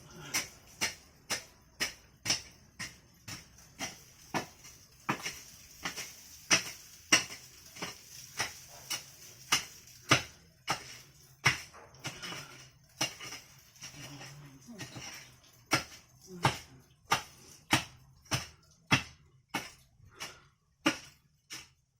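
A steady series of sharp knocks or strikes, about two a second, each with a brief metallic-sounding ring. There is a short pause a little past the middle.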